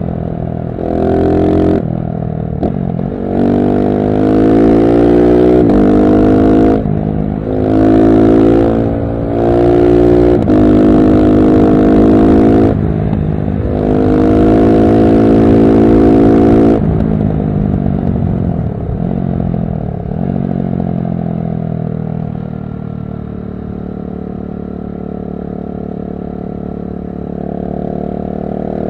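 KTM SMC-R 690's single-cylinder engine through a LeoVince One Evo slip-on exhaust with dB-killer, accelerating hard in several runs with the pitch climbing and breaking off at each gear change. In the second half the revs fall away, hold a lower steady note, and pick up again near the end.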